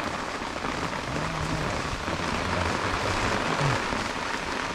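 Steady rain falling on a tarp shelter overhead: an even, unbroken hiss of drops.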